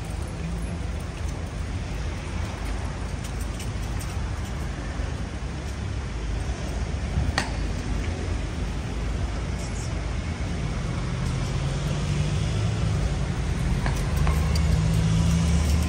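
Steady city road traffic, with a heavier vehicle's engine hum growing louder over the last few seconds; a single sharp click about seven seconds in.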